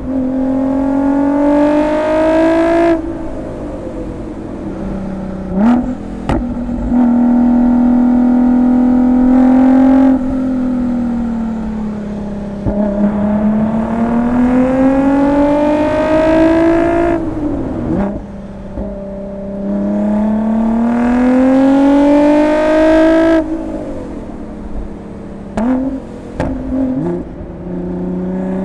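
Ford GT's twin-turbo 3.5-litre V6 through a QuickSilver Inconel exhaust, revving hard several times, the pitch climbing for a few seconds and then dropping sharply as the driver shifts or lifts off. Sharp pops and cracks come with some of the drops.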